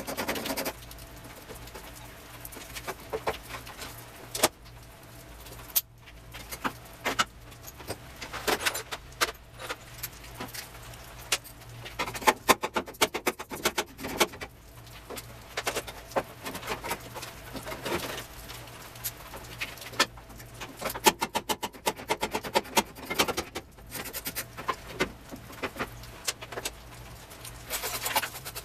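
Metal hand tools clicking and clinking in irregular runs while screws and brackets are worked loose on a car's engine bay panel, with a faint steady low hum underneath.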